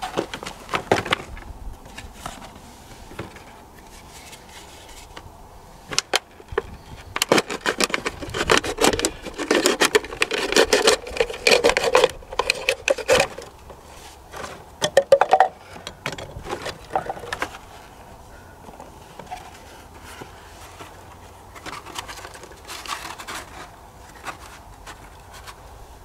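Irregular knocks, clatters and scraping of things being handled by hand, dense and busy for several seconds in the middle, then sparser.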